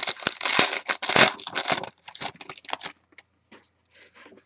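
Trading cards being handled and slid past one another: a quick run of papery clicks and rustles for about two seconds, then a few scattered flicks.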